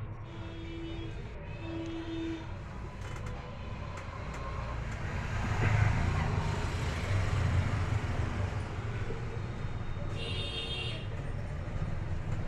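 Road traffic rumble, swelling about five to six seconds in as a vehicle passes close, with two short tones near the start and a brief high-pitched tone about ten seconds in.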